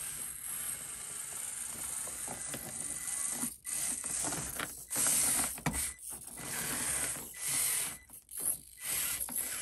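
Basher Rocksta 1/24-scale four-wheel-steer mini rock crawler creeping down a rock course: its small electric drive motors and gears whir in spurts with the throttle, cutting out briefly about three times, with small clicks and scrapes of the tires on the rock.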